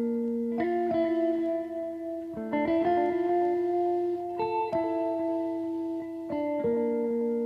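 Background music: slow, sustained chords that change about every two seconds.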